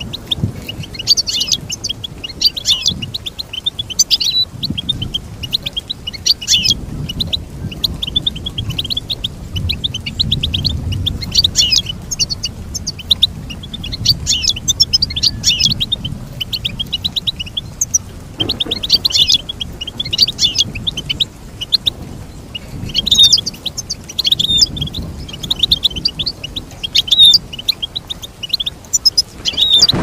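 European goldfinch singing: fast, high twittering phrases lasting a few seconds each, separated by short pauses.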